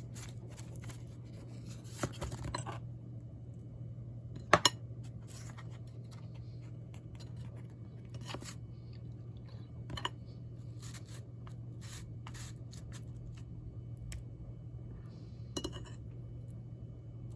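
A utensil tapping and scraping against a dish while pot pie filling is sorted through: scattered light clicks and scrapes, with the sharpest knock about four and a half seconds in. A steady low hum runs underneath.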